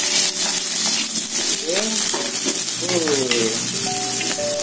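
Sliced shallots, garlic and onion sizzling in hot oil in a wok, stirred around with a spatula.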